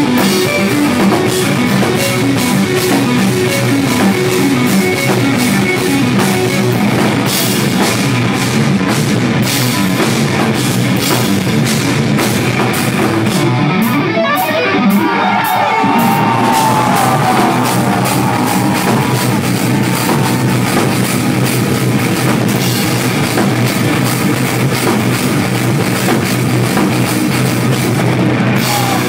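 Live instrumental progressive metal: distorted extended-range electric guitar over a drum kit. About halfway through the cymbals briefly drop out, and then a gliding lead guitar line comes in above the rhythm.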